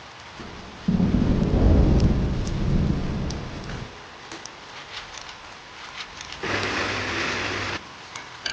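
Steady rain with scattered drops ticking, and a loud, deep thunder rumble that breaks in suddenly about a second in and dies away over about three seconds. Near the end a louder hiss swells in for about a second and cuts off suddenly.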